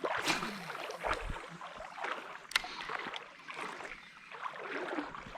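Creek water splashing and sloshing in irregular strokes, the sound of someone wading through a shallow creek, with a few sharp knocks.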